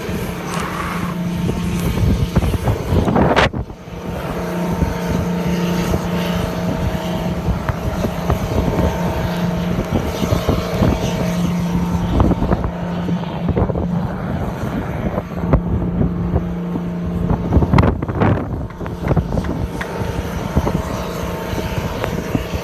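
Gusting wind buffeting the microphone, with a steady engine hum underneath; a heavy blast hits about three seconds in.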